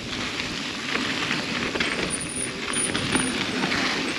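Mountain bike riding down a dirt and rock trail: steady tyre noise over the ground with many quick clicks and rattles from the bike.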